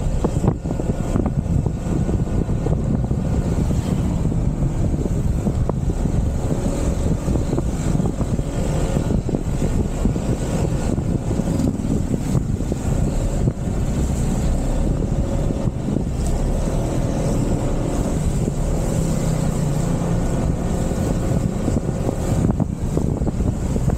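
Motorcycle riding along at a steady cruising speed: a steady engine drone under heavy wind rumble on the microphone.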